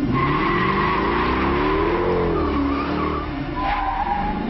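Police car's engine revving, its pitch rising and then falling, while the tyres squeal steadily as the car skids and slides across tarmac; the squeal shifts lower about three and a half seconds in.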